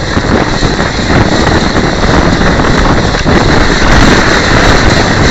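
Human-powered pedal car on the move, heard from a camera inside its shell: steady wind noise on the microphone over a dense, continuous rattle of the vehicle running along the track.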